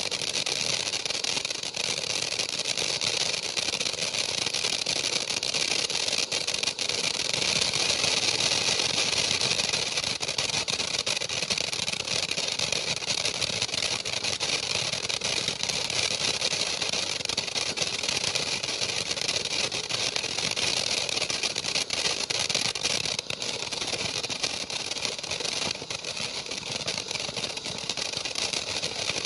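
Kimbolton Glittering Gemstones firework fountain burning with a steady hiss, with many small crackles from its glittering sparks.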